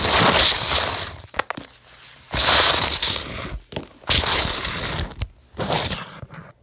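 Handling noise from the recording device as it is carried with its lens covered: the microphone is rubbed and knocked in about four loud rustling bursts, with a few sharp clicks between them.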